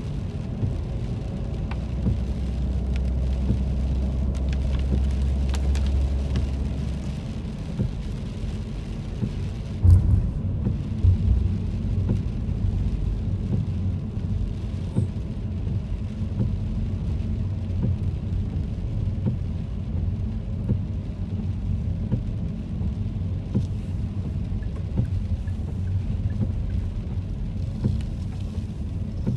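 Car cabin noise while driving on a wet road: a steady low rumble of engine and tyres. A low hum runs for the first several seconds, and there is a brief thump about ten seconds in.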